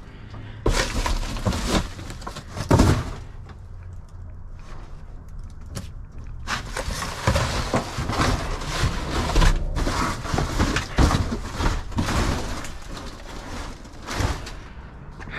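Knocks and bangs of scrap and debris being handled, a few sharp strikes in the first three seconds, then a long stretch of continuous rattling, scraping and rustling.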